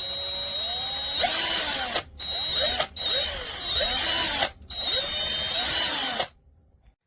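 Small 8V cordless drill motor whirring, its pitch climbing as the trigger is squeezed. It then runs in several short bursts with brief stops between, winding up and down each time, and stops about six seconds in.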